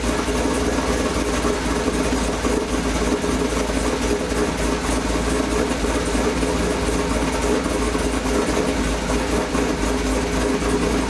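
Pontiac G8 GXP's LS3 V8 idling steadily, freshly started on a newly installed, bigger hydraulic roller cam with new lifters and valve springs.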